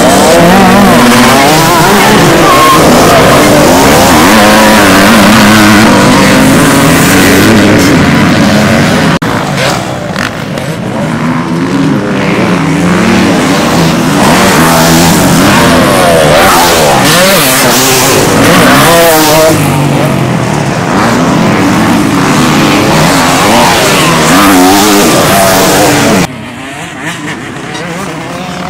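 Several off-road motorcycles racing on a dirt track, their engines revving up and down and overlapping as the riders accelerate out of corners and over jumps. The loudness drops suddenly near the end.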